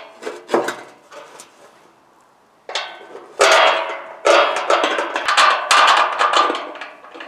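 Metal clanking of a steel wagon frame being put together: a few sharp knocks in the first second, then from about three seconds in a busy run of clanks and scraping as steel parts and bolts are fitted onto the girders.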